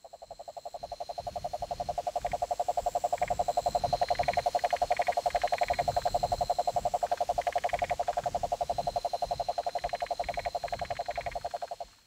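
A frog's long pulsed trill, about ten pulses a second, fading in and cutting off near the end. Shorter higher chirps come in small groups over a thin, steady high whine.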